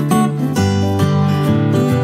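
Background acoustic guitar music, notes changing every fraction of a second.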